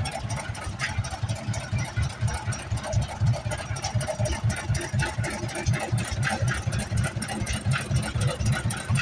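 An engine idling close by, a low, uneven throb running steadily underneath a noisy outdoor haze.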